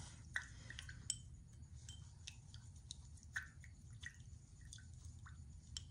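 Faint, scattered clicks and light glassy taps as a brush and metal hardware knock against a small glass jar of acetone, scrubbing Rub 'n Buff off the hardware.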